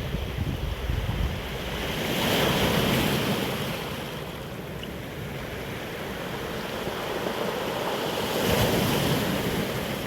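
Sea waves washing onto a rocky shore at high tide, surging twice about six seconds apart, with wind buffeting the microphone.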